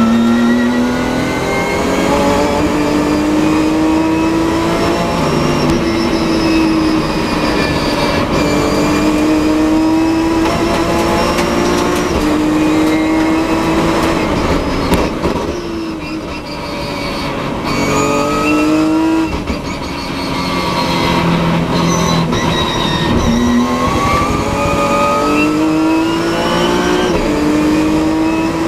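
Nissan 370Z race car's 3.7-litre V6 heard from inside the cockpit under hard acceleration, its revs climbing and falling back at each gear change. Around the middle the engine note drops away and goes quieter as the car brakes for a corner with downshifts. It then pulls through the gears again.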